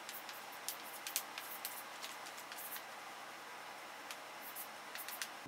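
Chalk writing on a blackboard: faint, irregular taps and short scratches as each stroke of an equation is written.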